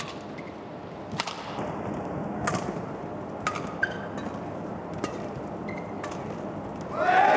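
Badminton rally: sharp racket strikes on the shuttlecock about every one to one and a half seconds, with short shoe squeaks on the court over a steady arena crowd murmur. Near the end the crowd noise swells into loud cheering.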